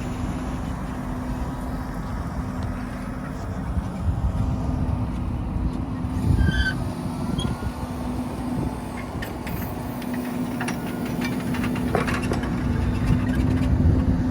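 Fendt 720 tractor's diesel engine running steadily under load while pulling a four-furrow reversible plough, a constant engine hum over a low rumble.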